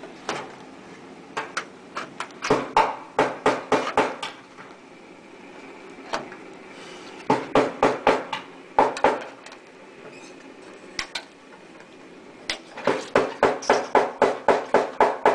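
Hand tin snips cutting zinc sheet: quick runs of sharp metallic snips, each run a few cuts long. The last run near the end is a steady series of about four snips a second.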